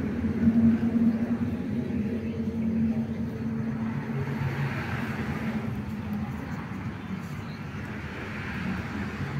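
A steady low motor hum, with a faint hiss that swells twice, about halfway through and near the end.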